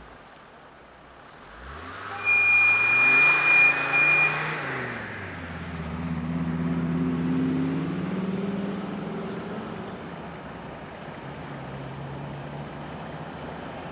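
TEM-TMH diesel locomotive sounding a loud, high-pitched horn for about two seconds, with a brief break near the end. Its engine rises in pitch under the horn, drops back, and then runs steadily as the train of tank wagons approaches.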